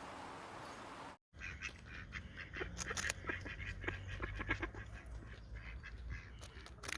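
A steady hiss cuts off about a second in; then many birds calling, a dense run of short calls.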